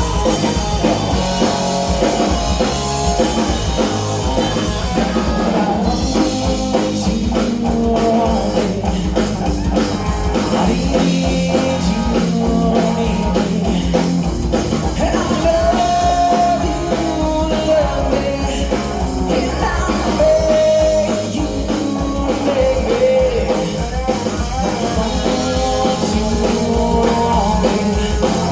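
Rock band playing a song with drum kit and guitar, at a steady beat.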